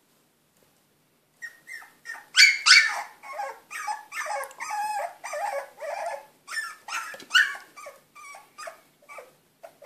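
Puppies growling and yipping at each other as they squabble over a food bowl. A quick string of short, high cries starts about a second and a half in and is loudest soon after.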